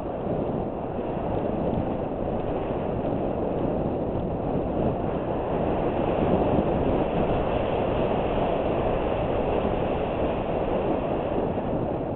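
Wind rushing over a helmet-mounted GoPro camera, mixed with bicycle tyres rolling over a dirt-and-gravel fire road on a fast descent. It is a steady rushing noise that builds slightly in the first second, then holds.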